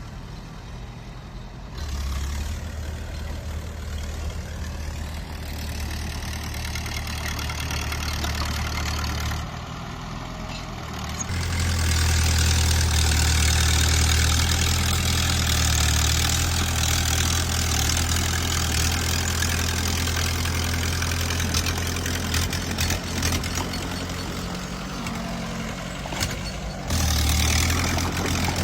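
Bulldozer's diesel engine running, getting clearly louder and harsher about 11 seconds in and staying loud, with a short drop near the end.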